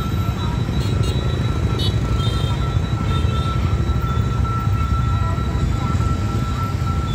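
Steady low rumble of motorbike engines idling and road traffic waiting at a closed level crossing, with a continuous high-pitched tone from the crossing's warning signal.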